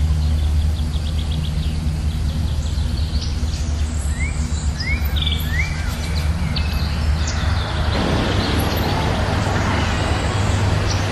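Small birds chirping in short rising notes, with a rapid ticking trill early on, over a steady low hum. About eight seconds in, a broad rushing noise swells up beneath them.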